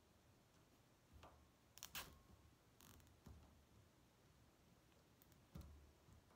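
Mostly near silence, broken by a few faint clicks and a short rasp about three seconds in: nylon zip ties being threaded and pulled tight around a plastic mesh tube of sphagnum moss. The loudest click comes about two seconds in.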